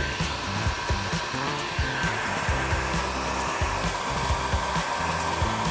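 Heat gun running on high heat, a steady rush of blown air with a thin whine, warming freshly drawn spray-paint veins in wet epoxy so they open up and flow.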